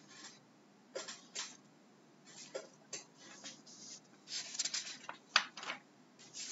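Faint scattered clicks and rustling, a few single clicks in the first half and a quicker cluster of small clicks and rustles later on.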